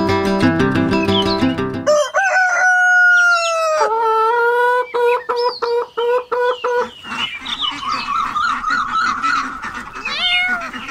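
Music stops about two seconds in. A rooster then crows in one long held call, followed by hens clucking in quick repeated notes that run on to the end.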